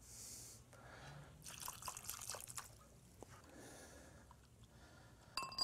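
Faint trickling and dripping of water poured into a glass bowl, with hands swishing in it. Near the end a knock on glass rings briefly.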